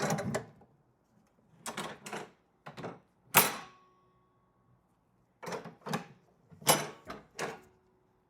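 Cabinet mixer lift hardware and its cabinet door being worked by hand: a series of wooden and metal clacks and knocks as the lift mechanism is swung up and latched, the loudest about three and a half seconds in with a short metallic ring.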